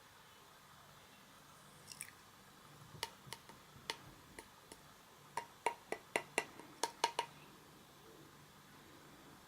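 Slime being squeezed and worked by hand, giving a series of small sharp pops and clicks: a few scattered ones at first, then a quick run of about ten before they stop.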